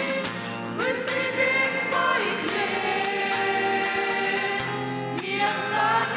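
Choir singing a Russian Christian song, holding sustained notes with slides between pitches.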